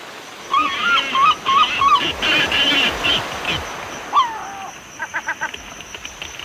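Animal-like calls: four quick wavering cries in a row, then a noisy rush with clicks, a single swooping call, and a rapid chattering call near the end.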